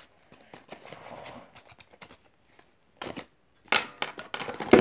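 A speed cube's cardboard retail box being opened and its insert pulled out by hand: soft rustling and scraping of cardboard, then louder scraping and clicking near the end.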